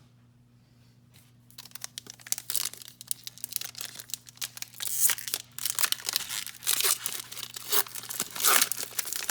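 Foil trading-card pack wrapper being torn open and crinkled by hand, a dense crackling rustle that starts about a second and a half in. A low steady hum runs underneath.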